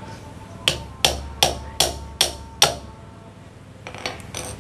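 A large chopping knife striking down onto a wooden block, six sharp chops about two or three a second, then a few lighter taps near the end.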